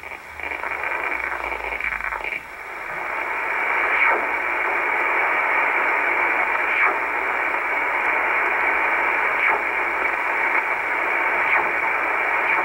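Icom IC-R8500 shortwave receiver in upper-sideband mode being tuned steadily up through the 14.7–14.95 MHz range: steady band hiss through its narrow speech filter, dipping briefly twice near the start, with faint short chirps every couple of seconds as signals sweep past.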